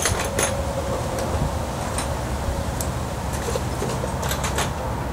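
Scattered metallic clicks and clinks of a ratchet with a spark-plug socket being fitted onto a small engine's spark plug and worked, with a quick cluster of clicks about four and a half seconds in, over a steady low rumble.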